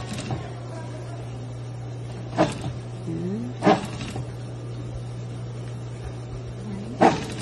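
Brother industrial sewing machine's motor humming steadily, with three sharp clunks from the machine as the sewing stops and starts.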